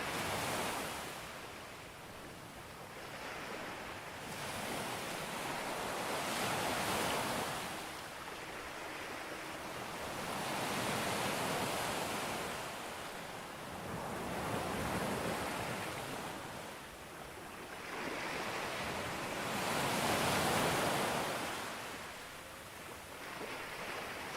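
Sea waves breaking on a beach: a rushing hiss that swells and fades as each wave comes in, about every four to five seconds, the loudest surge about three-quarters of the way through.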